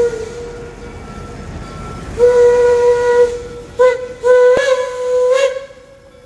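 Steam whistle of Reading & Northern 2102, a 4-8-4 steam locomotive, sounding a fading blast, then a long blast, a short one and another long one, over a steady hiss of steam. A single sharp click comes about four and a half seconds in.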